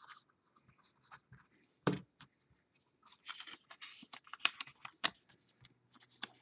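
A pen scratching on paper, a sharp tap about two seconds in, then paper rustling and sliding with a few light knocks.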